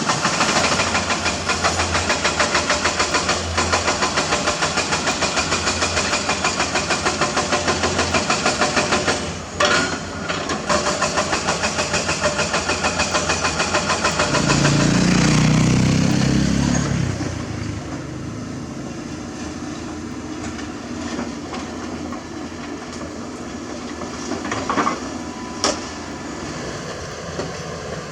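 Crawler excavator at work, its diesel engine running under a rhythmic clatter of about four knocks a second. The clatter stops about nine seconds in. Around fourteen seconds in the engine rises louder for a few seconds, then settles to a steadier, quieter run, with a couple of sharp clacks near the end.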